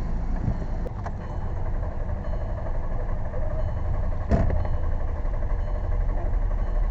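Starter motor cranking the 2007 Volkswagen Jetta's engine steadily for several seconds without it catching, on jump-box power. The car won't start even though the battery is strong. There is a click about a second in and a brief knock about four seconds in.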